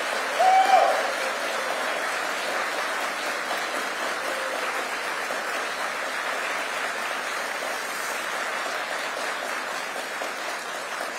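Large audience giving a standing ovation: sustained applause with one brief cheer about half a second in, slowly tapering off.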